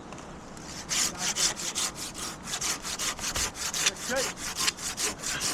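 Hand pruning saw cutting through a maple branch, starting about a second in with quick, even push-pull strokes, about four a second.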